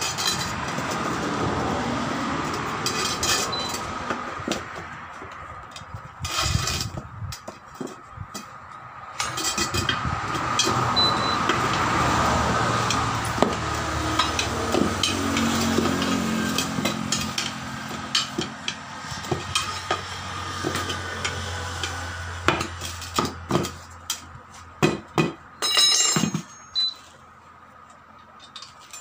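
Metal tyre lever clanking and scraping against a motorcycle's alloy wheel rim as the tyre bead is levered back on over a new tube, with many sharp knocks, a cluster of them near the end. A low steady hum runs through the middle.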